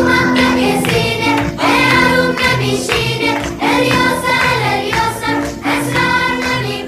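Background music: a song with several voices singing together over a steady bass line.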